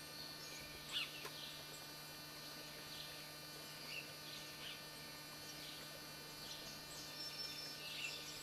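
Faint birds chirping at scattered moments, with a few short high whistles, over a steady low hum.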